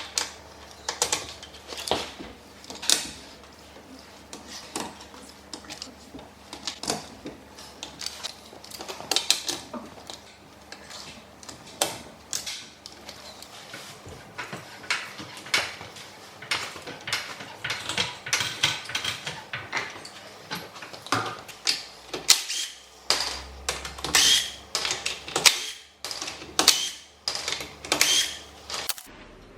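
Irregular clicks and knocks from hand tools and wheel parts being handled during a car tire change, with a faint low hum underneath.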